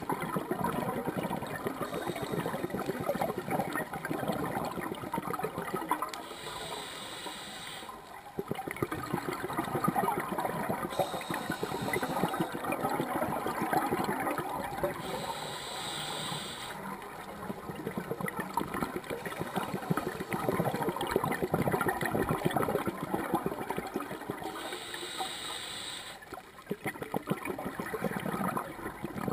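Scuba regulator breathing underwater: four short hisses of inhalation, each followed by several seconds of bubbling, crackling exhaled air.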